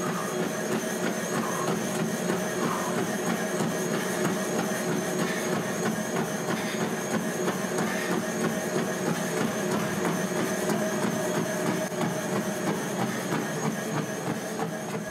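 A steady machine-like hum with several held tones under it and a faint high whine that wavers up and down.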